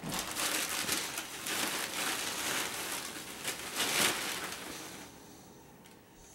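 Large white plastic bag rustling and crinkling as it is grabbed and pulled about, dying down about five seconds in.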